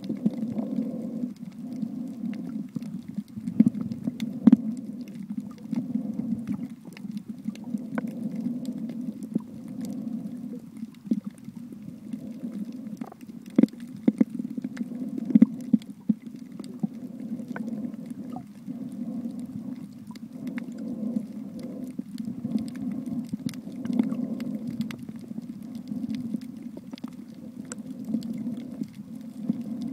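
Muffled underwater sound picked up by a submerged camera: a low rumble that swells and fades every second or two, with scattered sharp clicks and knocks.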